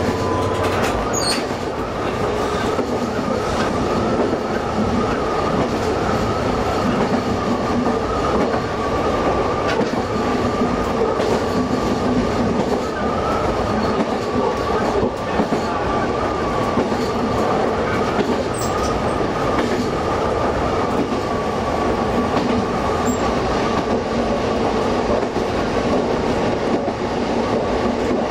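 Diesel railcar running at steady speed on a single-track line, heard from the driver's cab: a continuous engine and running-gear drone with a steady whine near the top, over the rumble of wheels on rail, with a few faint clicks.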